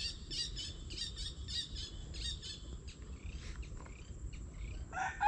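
Small bird calling in an even series of short, high chirps, about three a second, which give way to scattered quick falling chirps. A louder pitched call starts near the end.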